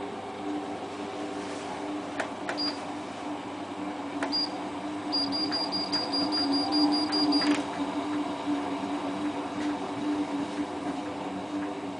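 Hotpoint Ultima WT960 washing machine's control panel beeping as it is set: a click and a single high beep twice, then a quick run of about a dozen beeps over two seconds, about five a second. A steady low hum runs underneath.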